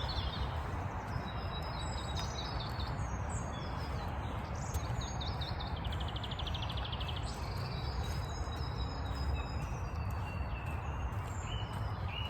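Several birds chirping and whistling, with a rapid trill of about a second midway, over a steady low rumble.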